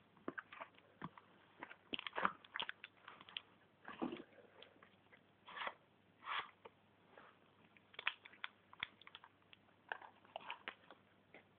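Paper crinkling and clicking as a hand-made paper model of a Thompson submachine gun and its drum magazine are handled: faint, irregular small crackles and taps with a couple of longer rustles midway.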